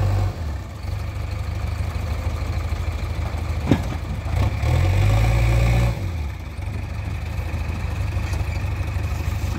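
Diesel engines of a JCB backhoe loader and a tractor under load, pushing and pulling a sugarcane-laden trailer stuck in the mud. The engine note drops about half a second in, revs up louder from about four and a half to six seconds, then settles back; a single sharp click comes near four seconds.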